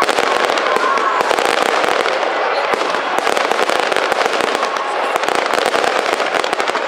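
Fireworks display with many shells bursting in quick succession: a dense, unbroken run of bangs and crackles.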